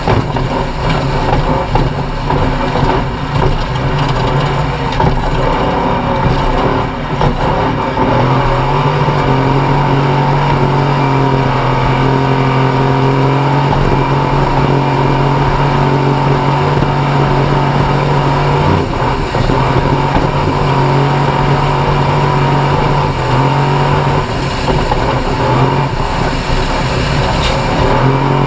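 Off-road race vehicle's engine running loud under hard load. It sounds uneven at first, then is held at steady high revs for long stretches, easing off and picking back up a couple of times.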